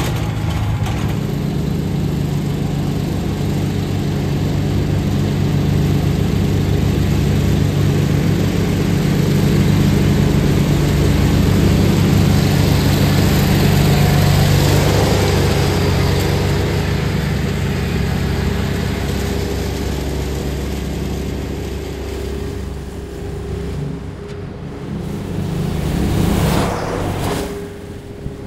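Cub Cadet 982 garden tractor's Onan twin-cylinder engine running steadily while it pulls a Trac Vac leaf vacuum through leaves, its blower rushing. It grows louder toward the middle and fades as the tractor moves away.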